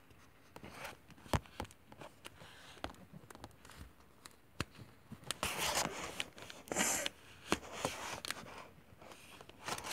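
Close handling noise of a plastic baby doll and its things being moved about: rustling of cloth and plastic, with scattered clicks and taps and two louder rustles about five and a half and seven seconds in.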